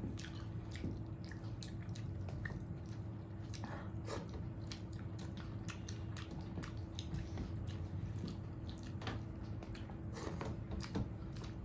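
Faint mouth sounds of a person chewing food, with small irregular clicks and smacks over a low steady hum. The eating sounds are quiet, a little less than usual.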